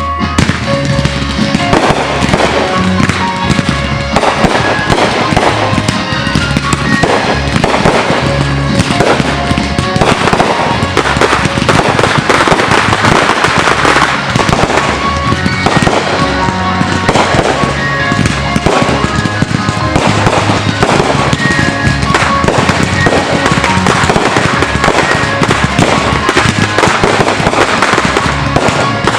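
Fireworks display bursting in quick, continuous succession, with many shells going off one after another, while music plays underneath.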